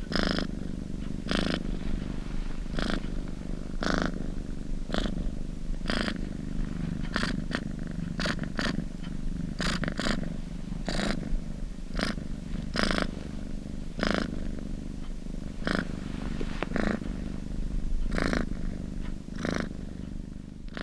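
Domestic cat purring: a continuous low purr with a breathy swell about once a second.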